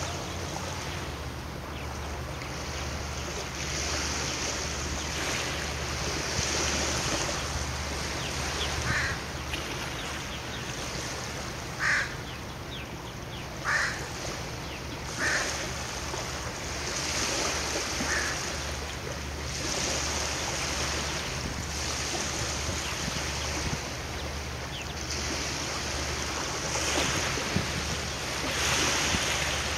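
Water washing and wind on the microphone, coming in slow swells over a steady low hum, with a handful of short bird calls through the middle.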